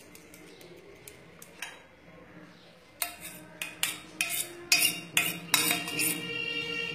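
Metal spoon knocking and clinking against a cooking pan as rice is spooned around. A series of about eight sharp clinks starts about three seconds in, after a quieter stretch.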